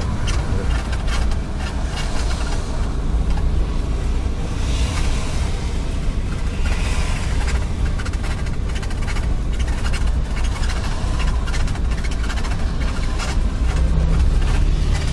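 Steady low rumble of a car driving on the road, with tyre and wind hiss, heard from inside the car. Other traffic passes close by.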